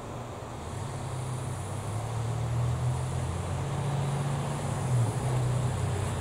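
A vehicle engine running close by: a low, steady hum that swells over the first few seconds, with a brief louder bump about five seconds in.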